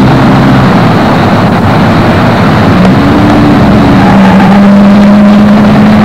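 A motor running steadily over loud rushing noise, its hum drifting a little up and down in pitch.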